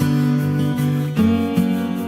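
Background music on acoustic guitar, strummed chords with a chord change about a second in.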